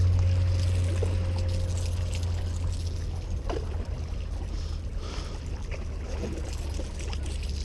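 A low steady drone that slowly fades, with light water splashing and a few small knocks as a hooked fish is drawn in against the rocks at the water's edge.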